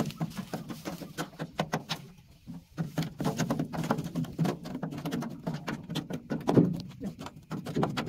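Irregular clicks and scrapes of a hand tool poking and scraping along the slotted metal grille of a rice combine harvester's threshing section, clearing packed straw, over a low steady hum. The clicking pauses briefly a couple of seconds in.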